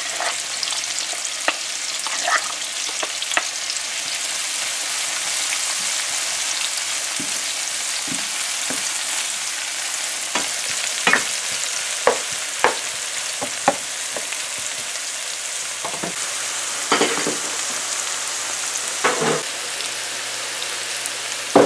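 Chopped onion, scallions, tomato and garlic sizzling steadily in hot oil in a frying pan, with a spatula knocking and scraping against the pan now and then as it is stirred.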